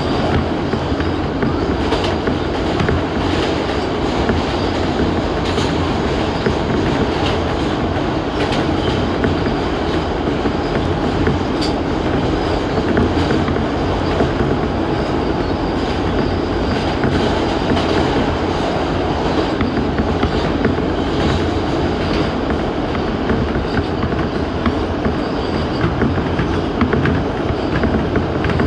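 New York City subway train running at speed, a steady loud rumble with scattered clicks of the wheels over rail joints.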